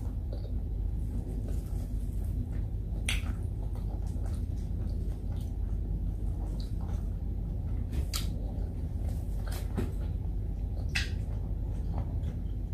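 Eating by hand: quiet chewing with a few short, sharp mouth smacks or clicks, about three standing out, over a steady low hum.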